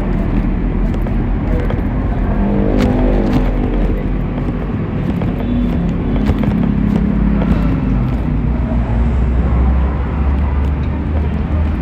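Yamaha YZF-R1's inline-four engine running through its stock exhaust while ridden. The engine note rises and falls in pitch a few times, then settles lower and steadier near the end.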